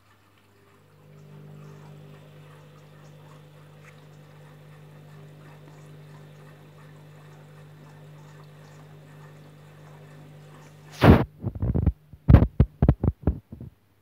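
Candy Grand'O Vita front-loading washing machine in its softener rinse, drum turning a wet load: the motor runs with a steady hum and soft sloshing, then stops about eleven seconds in. A quick run of loud, irregular thumps follows.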